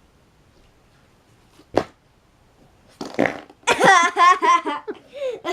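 Slime squeezed by hand making fart noises: a short sharp pop a little under two seconds in, then a longer fart-like squelch about three seconds in, followed by a girl laughing in quick bursts.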